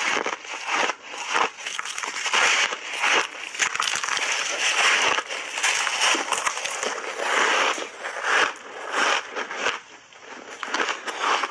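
Mouth chewing crunchy shaved ice coated in milk powder: dense, irregular crunching and crackling with many sharp cracks.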